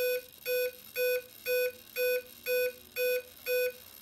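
Kontronik Kolibri 140 LV ESC beeping through the Pyro 650 motor in programming mode: a series of short, even pitched beeps about two a second, stopping shortly before the end. The beep series counts off a programming mode number as the ESC steps toward mode 10.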